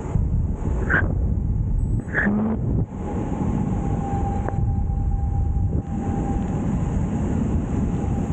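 Wind rushing over the camera microphone, with tyre noise from a bicycle descending a paved road at speed: a steady low rumble.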